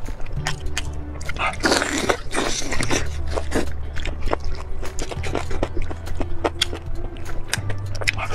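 Wet tearing and crackling as a roasted chicken is pulled apart by gloved hands, busiest about two seconds in, then a bite into the meat near the end. Background music with a low bass line plays throughout.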